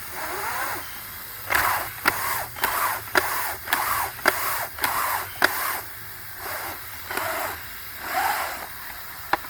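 Window screen being pushed back and forth through a handheld screen cleaner: rhythmic scrubbing strokes about twice a second, each with a sharp click, starting a second and a half in and stopping about six seconds in, followed by a couple of single clicks.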